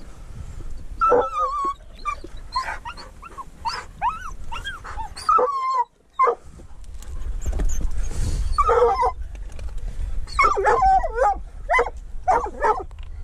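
Hunting dog whining and yipping excitedly in repeated high cries that bend up and down, in several bursts with a short break in the middle, keen on a mink hidden in the rock crevice.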